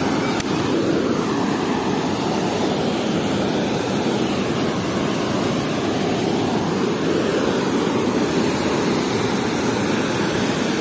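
Water rushing and churning steadily as it pours out through the open gates of a river sluice.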